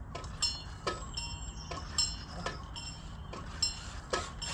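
Steady metallic ticking, about two ticks a second, each tick with a short bright ring, over a low steady hum.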